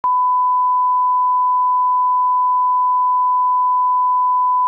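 Broadcast colour-bar test tone: a single steady 1 kHz sine beep at a constant level that cuts off abruptly near the end.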